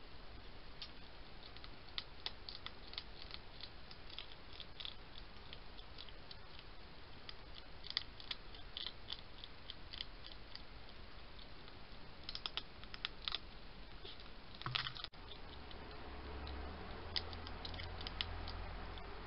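Hedgehog eating from a bowl: irregular, quick crunching clicks of it chewing, in uneven runs with short pauses. A low steady hum comes in over the last few seconds.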